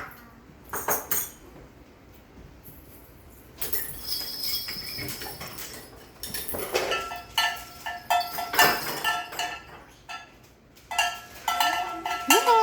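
Cowbell and other small metal percussion struck by hand at irregular intervals: short metallic clanks and clinks, each with a brief ring. The strikes come thickest near the end.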